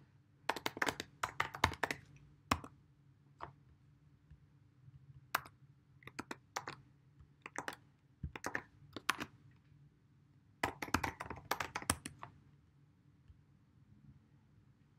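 Typing on a computer keyboard: quick runs of key clicks with pauses between them, the last run ending about two-thirds of the way through.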